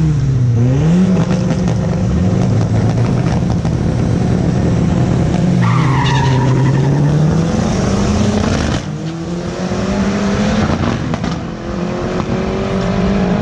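Drag-racing car's engine revving at the start line, the pitch rising and falling, with tyres squealing in a burnout around the middle. About nine seconds in it launches and pulls away, the engine pitch climbing in two long rises.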